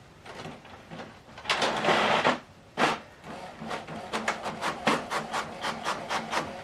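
Canon MAXIFY GX7050 inkjet printer printing a test page: a loud whirring feed of the paper about one and a half seconds in, a knock, then a rapid regular clicking, about four or five a second, as the print mechanism steps along.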